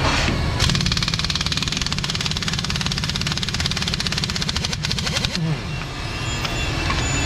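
Air impact wrench hammering on a fire truck's wheel lug nuts, taking them off the old steel front wheel. It gives a fast steady rattle starting just under a second in, stops about five seconds in, and starts again at the end.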